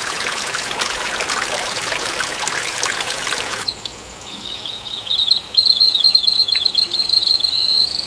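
AI-generated forest ambience from Meta's Audiobox: a dense crackling, rustling noise for the first three and a half seconds, then a high, rapid chirping trill that carries on to the end.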